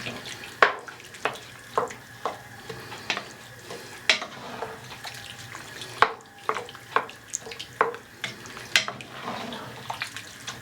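A spoon stirring gumbo in a pot after chicken stock has gone in, knocking and scraping against the pot at irregular intervals over a faint hiss from the pot.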